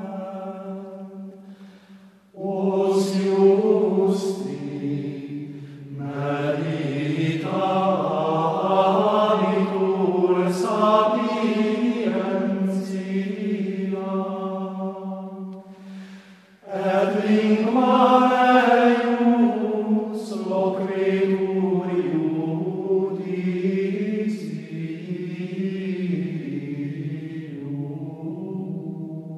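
Slow sung chant: voices holding long, sustained notes in phrases, with short breaks about two seconds in and a little past halfway.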